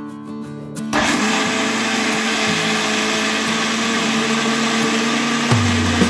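Electric mixer grinder starting up about a second in and then running steadily at full speed, its motor humming under a loud whirr as the blades churn a thick batter in the stainless steel jar.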